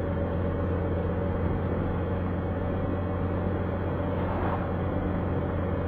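A car's engine and tyre noise, heard from inside the cabin while driving at a steady speed on a paved road: an even, low drone.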